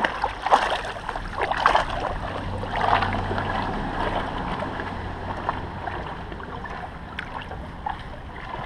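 Shallow water sloshing and splashing as someone wades through a Kneipp wading pool, with sharp splashes most frequent in the first three seconds, then a steadier churning wash.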